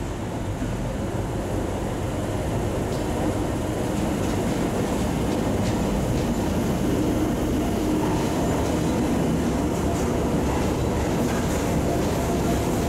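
Tyne and Wear Metro train running into an underground station platform: a low rumble that grows louder over the first few seconds and then holds steady, with a faint whine around the middle.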